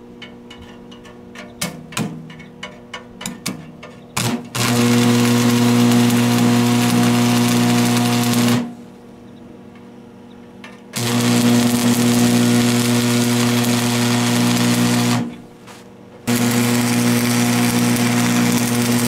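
AC stick welder burning a 3/32-inch 6013 rod to tack sheet metal. A run of sharp ticks is followed by three spells of the arc crackling and buzzing, each about three to four seconds long, with a steady hum underneath.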